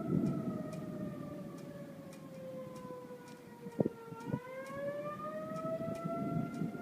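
Outdoor tornado warning siren wailing, its pitch sliding slowly down and then rising again about four seconds in. There is a low rumbling haze underneath, with a sharp click near the low point.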